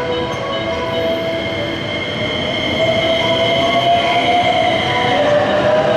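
JR West 287 series limited express electric train pulling out and gathering speed past the platform. Its motor whine climbs steadily in pitch over the noise of the wheels on the rails.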